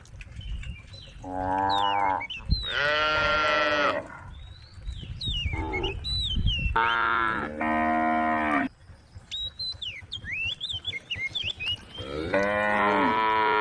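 Cows mooing over and over, about five long, loud calls with short pauses between them. Birds chirp in the gaps.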